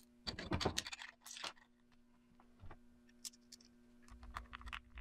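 Small Phillips screwdriver working a tiny screw on the back of a plastic handheld radio, with light clicks and taps of the tool and the clip being handled. A cluster of clicks in the first second and a half, a few single ticks after, then a run of quicker ticks building near the end.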